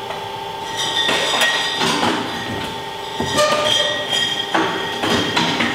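Bottling-room machinery running with a steady whine that changes pitch a few times, with glass bottles clinking and knocking now and then.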